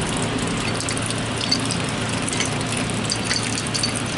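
Water running and splashing steadily from a faucet into a plastic bucket, with a few faint clicks.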